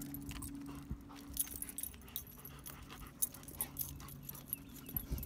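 Two German Shepherds moving over sandstone rock: many small clicks and scrapes of claws, and jingling collar tags, with panting. A faint steady low hum runs underneath.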